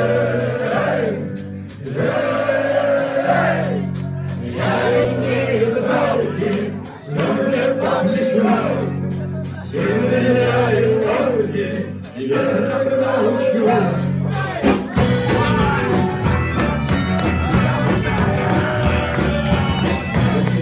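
A song: a singing voice sings drawn-out phrases with short breaks between them over a steady instrumental accompaniment. About fifteen seconds in, the accompaniment turns fuller and busier.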